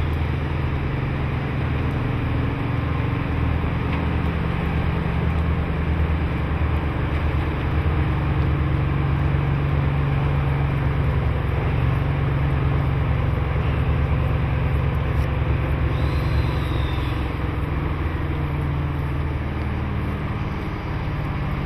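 DD14 rotary snowplow locomotive working at low speed. Its twin diesel engines run steadily under load while the rotary blower head cuts into the packed snow and throws it clear in a continuous rushing spray. The engine note shifts slightly near the end.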